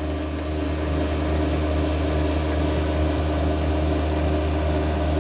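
Kearney & Trecker milling machine's power knee feed running, a steady motor hum as the knee is lowered, stopping just after the end.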